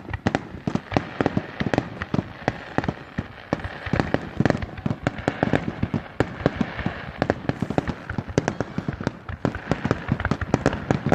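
Fireworks going off in a rapid, continuous barrage: many sharp bangs and crackles every second, with a steady hiss underneath.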